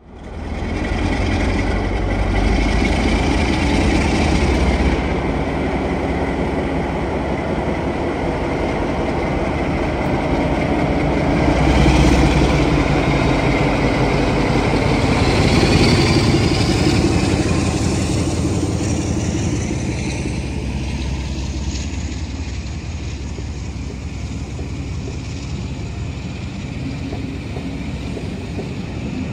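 Class 47 diesel locomotive's Sulzer V12 engine under heavy power, pulling a train away from a standstill and passing close by. It is loudest about halfway through, with a faint rising whine, then eases to a steadier rumble as the coaches roll past.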